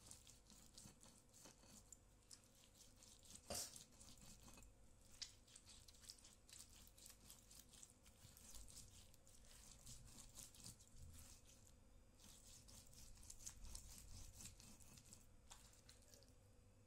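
Faint, irregular scraping and squishing of a stone pestle grinding chillies and small tomatoes in a stone mortar (Indonesian cobek and ulekan), with light clicks of stone on stone. One sharper knock about three and a half seconds in.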